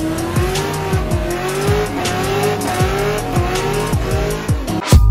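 A car's engine revving and tyres squealing in a burnout, mixed with a hip-hop beat: deep falling bass hits about twice a second and steady ticking hi-hats.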